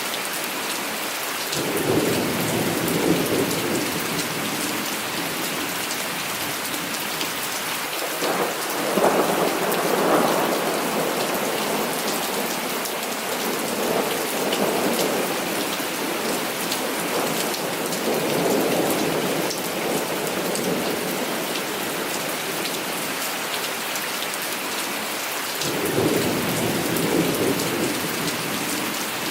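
Heavy rain falling steadily with a constant hiss, and several rolls of thunder rumbling over it, the strongest about nine seconds in.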